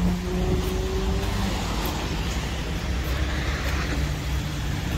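Steady low rumble of car engines and road traffic.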